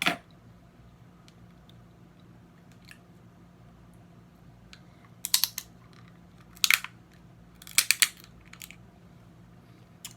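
Snow crab leg shells being cracked and snapped apart by hand. There is a sharp snap at the start, then several bursts of crisp cracking and crunching, the loudest near the end, with small shell clicks in between.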